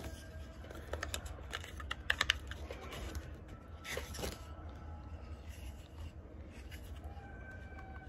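Hard plastic parts of a cordless orbital sander being handled and fitted together: scattered small clicks and knocks, with a quick run of clicks about two seconds in.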